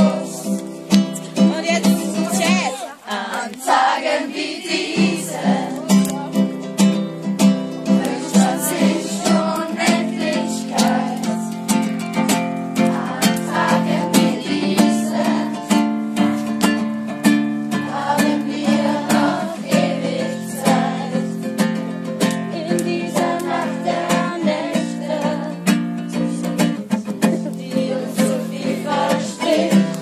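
Acoustic guitar strummed in a steady rhythm of about two strokes a second, with a group of voices singing along around a campfire.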